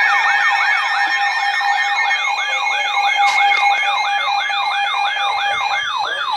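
Weather radio receiver's siren alarm sounding loudly: a fast, repeating up-and-down sweep, about three a second, over steady tones that stop about six seconds in. It is the alert that a flash flood warning is being issued.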